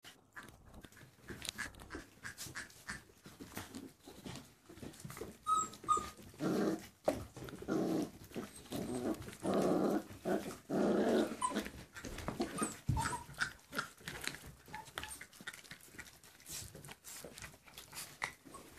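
Several puppies chewing and tearing at raw meat, with many small crunches and clicks, and low growls over the food from about six to eleven seconds in.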